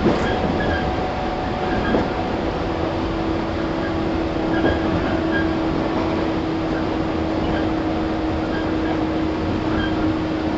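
A 115 series 1000-subseries electric multiple unit (KuMoHa 115-1005) running, heard from inside the car: steady wheel-and-rail rumble with a motor hum holding one pitch at constant speed, and a couple of knocks from the rails near the start.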